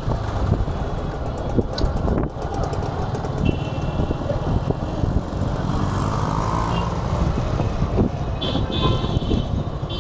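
Riding a motorcycle through city traffic: a steady low rumble of engine and wind, with other vehicles' horns tooting briefly about three and a half seconds in and again near the end.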